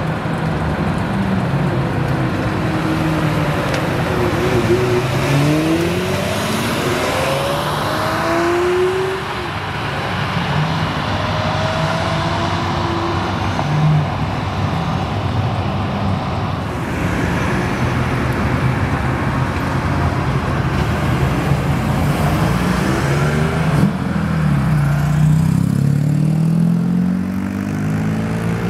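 Lamborghini Murciélago V12 pulling away and accelerating hard, its pitch rising in several pulls as it shifts up, then fading into the distance. Near the end, a motorcycle pulls away close by and its engine note rises.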